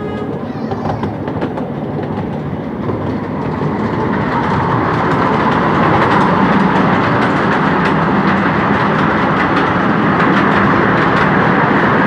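Miniature railway train running along the track, its wheels clicking steadily over the rail joints amid a constant rolling noise that grows louder about four seconds in.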